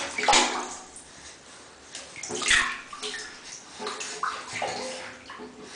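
Bath water splashing as a baby's hand slaps and sweeps through it, in uneven splashes with two louder ones, one just after the start and another about halfway through.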